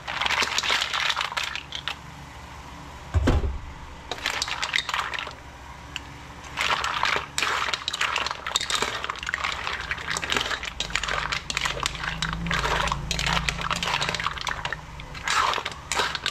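Mussels in their shells being tipped into a frying pan with shrimp and stirred, shells clattering and clinking against the metal pan and each other, with a heavy thump about three seconds in.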